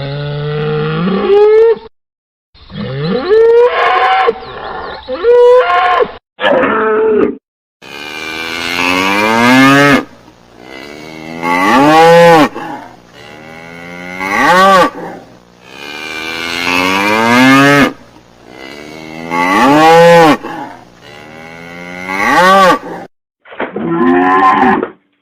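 Cattle mooing: a string of separate drawn-out moos cut together, each rising then falling in pitch. Through the middle stretch they come about every two to three seconds.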